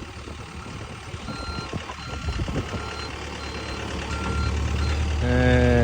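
A vehicle's reversing alarm beeps about once every 0.6 s, six or so times, over a low running rumble. Near the end an engine hum grows louder.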